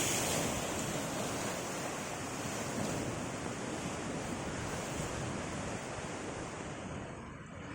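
Ocean surf washing onto a beach, a continuous rushing wash of waves that eases slightly near the end.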